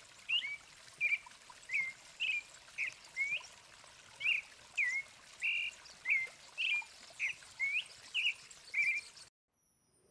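Sabiá thrush singing a steady series of short whistled notes, some rising and some falling, about two a second. The song stops abruptly about nine seconds in.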